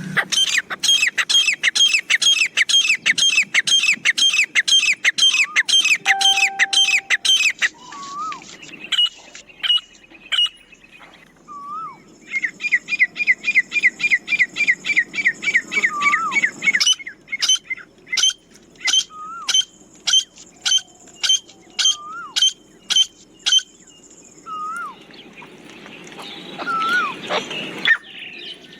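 Grey francolin (teetar) calling: fast runs of high, hooked notes, about four a second, in two long bouts, with slower single notes after each bout and a few lower hooked whistles in between.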